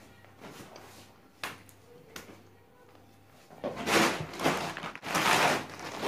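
A person getting up from a table and moving about: a few light knocks at first, then louder bursts of rustling and shuffling in the second half.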